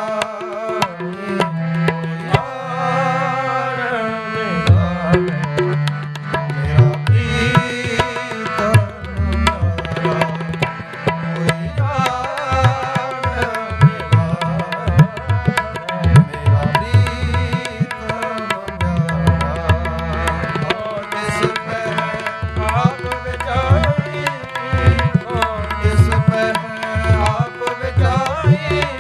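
Sikh kirtan music: tabla drumming steadily under a sustained melodic accompaniment, in a passage with no clearly sung words.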